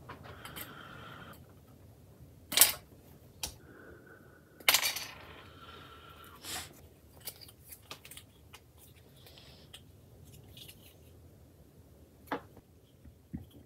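Grey plastic model kit parts being clipped off their sprue: two loud, sharp snaps about two and a half and five seconds in, with lighter clicks and taps of plastic on the cutting mat around them.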